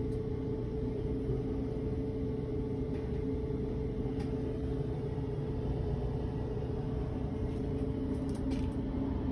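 Whirlpool washing machine running empty in its diagnostic test mode: a steady motor hum with a constant mid-pitched tone, and a couple of faint clicks.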